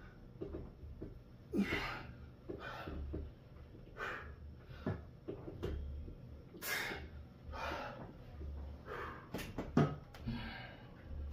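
A person breathing hard during exercise, with a forceful breath in or out roughly every second.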